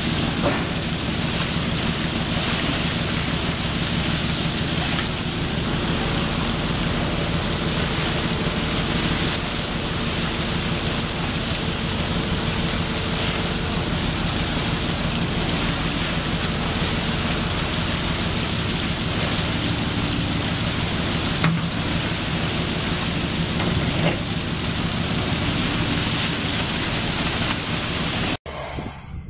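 Steady rush and splash of water pouring from a fishing boat's hull outlets into the harbour, over a steady low hum. It cuts off near the end.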